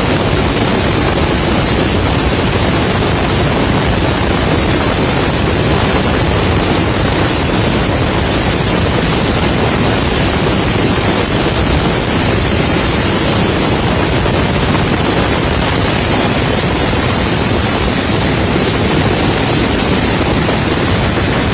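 Helicopter in flight, heard as a steady, loud rushing noise with wind on the microphone.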